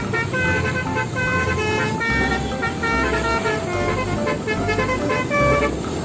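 Mercedes-Benz OH1526 intercity bus sounding a multi-tone musical horn, short notes stepping up and down in a quick tune, over the low rumble of its engine and passing traffic.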